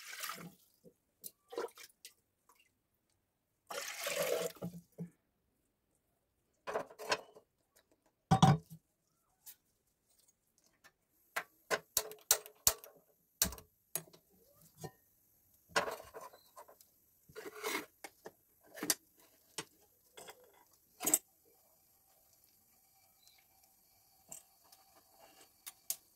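Water poured into an aluminium pressure cooker, then a scattered string of short metallic clinks and knocks as the cooker and its lid are handled on a gas stove, with one sharper knock about eight seconds in.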